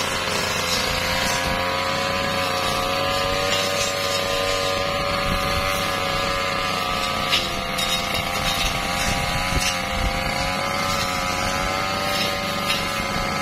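Petrol brush cutter engine running at steady high revs, its pitch wavering slightly. A few sharp clicks are scattered through the sound.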